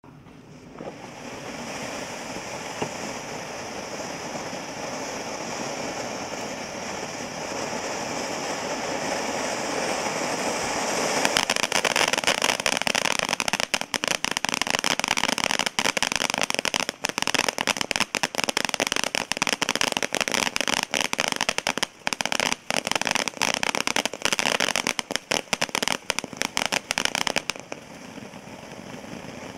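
WD3012 Diamond Rain ground fountain firework spraying. A steady hiss starts about a second in. From about eleven seconds in it grows louder, with dense rapid pops from its strobe stars, and it eases back to a quieter hiss near the end.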